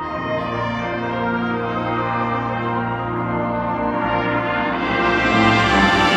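Marching band brass section (trumpets, mellophones and tubas) playing sustained chords over a deep held bass note, swelling into a louder, brighter crescendo from about four seconds in.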